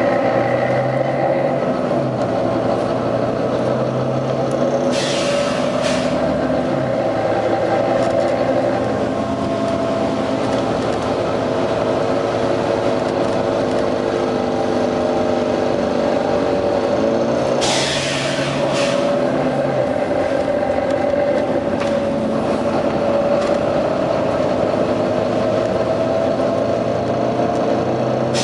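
Volvo B9TL double-decker bus engine running under load, its pitch rising and falling as it pulls and changes gear. Two bursts of air hiss from the bus's air system come about five seconds in and again near eighteen seconds.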